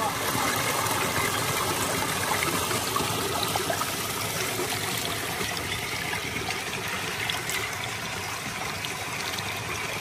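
Steady rush and trickle of water flowing in a shallow forest stream.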